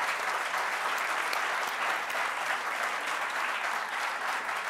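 Audience applauding: dense, even clapping from a roomful of people.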